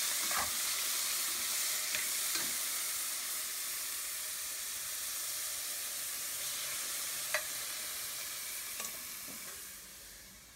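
Chicken frying in hot oil in a stainless steel pot, a steady sizzle, with a metal spoon clinking against the pot a few times as the pieces are stirred. The sizzle fades near the end.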